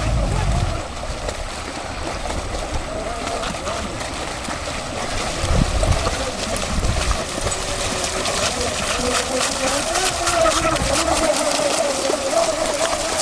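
Small electric motor of an RC boat whining on the water, its pitch wandering up and down with the throttle, with light splashing and wind gusts on the microphone.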